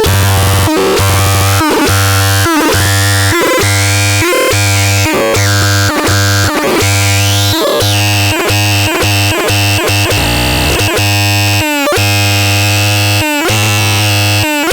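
Loud, harsh synthesizer music: a pulsing low bass note under dense, buzzing chords that cut out briefly about once a second, with gliding tones rising and falling above them.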